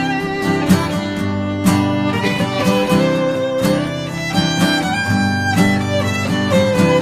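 Folk instrumental intro: a violin plays a melody of held notes over two acoustic guitars strumming a steady rhythm.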